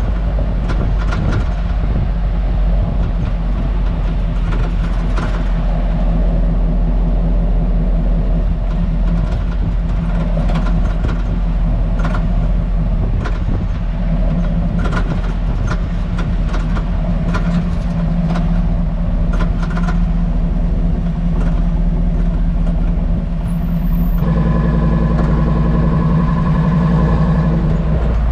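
Hummer H2 heard from beneath at low road speed: a steady drivetrain and road rumble with irregular sharp rattling knocks from the rear suspension, a fault whose cause is unknown after new springs, shock absorbers, spring seats and sway bar links failed to cure it. About three quarters of the way through, the knocks thin out and a steadier drone takes over.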